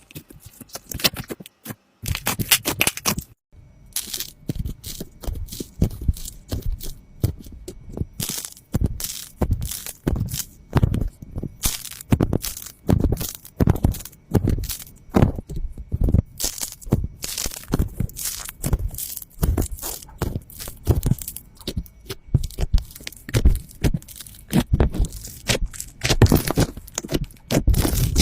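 Slime being squeezed and pressed by hand: rapid crackling pops and clicks, with a louder squish about once a second.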